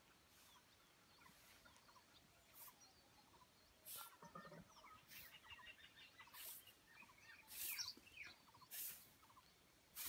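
Faint bird chirping: many short, quick calls, thickest about five to seven seconds in. Short, soft rustling hisses come every second or two and are the loudest sounds.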